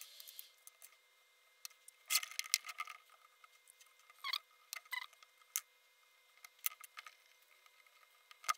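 Light metallic clicks and short scrapes from hands taking apart a small brushless motor clamped in a bench vise, with a busier stretch of scraping about two seconds in and scattered single clicks after it.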